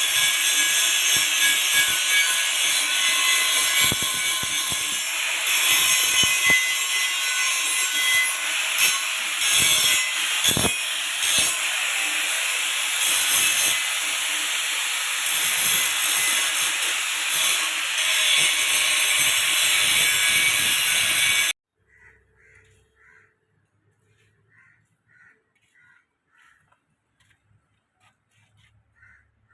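Loud, harsh grinding noise, mostly high-pitched with little low rumble, typical of a power tool cutting or grinding metal; it cuts off suddenly about 21 seconds in, leaving near silence with a few faint bird calls.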